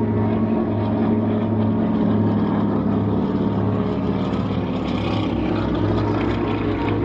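North American T-6 Texan's nine-cylinder Pratt & Whitney R-1340 Wasp radial engine and propeller running steadily in a flypast, a loud, throbbing drone.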